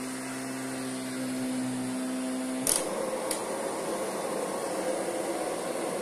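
Kirby Sentria upright vacuum cleaner's motor running with a steady hum. About halfway through there are two sharp clicks, after which the sound turns rougher and less even.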